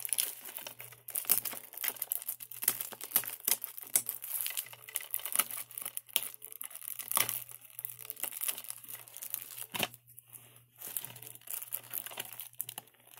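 Plastic shrink-wrap on a DVD case crinkling and tearing as fingers pick at it and peel it off, in a run of irregular crackles with a short pause about ten seconds in.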